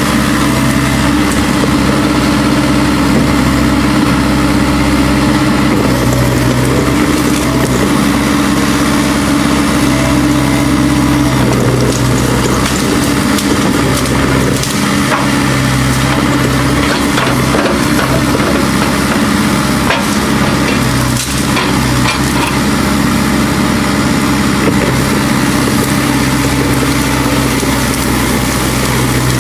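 Kubota U-45 mini excavator's diesel engine running steadily under load while the machine works, with brush and roots crackling and a few sharp snaps as the bucket digs out stumps.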